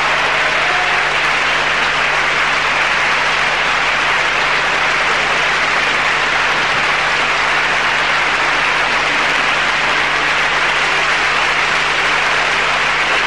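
Audience applauding steadily as dancers take their bows, with a steady low hum underneath.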